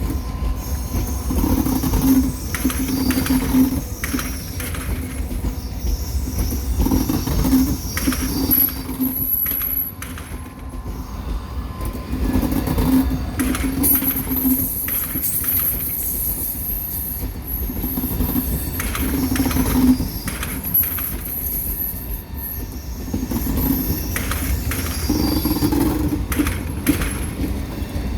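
Two coupled ETR 600 Frecciargento electric high-speed trainsets rolling slowly through a station. A steady low rumble carries repeated clicks of wheels over rail joints and points, with a thin, high wheel squeal that comes and goes.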